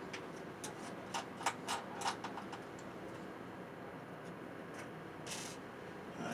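Light clicks and taps of small hardware being handled by hand on a desk, quick and clustered in the first couple of seconds, then a few sparse ticks and a brief rustle about five seconds in.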